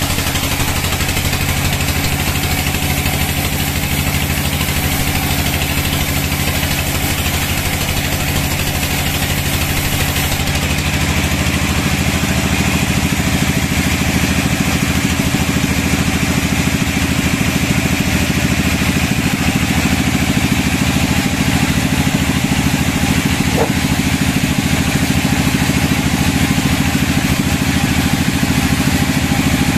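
Sawmill machinery running with a steady engine drone. The drone changes and grows slightly louder about ten seconds in.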